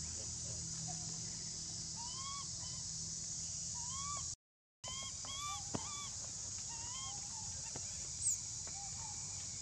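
Long-tailed macaques giving short, squeaky coo calls, each rising then falling in pitch, about a dozen of them scattered through, over a steady high hiss. The sound drops out for a moment about halfway.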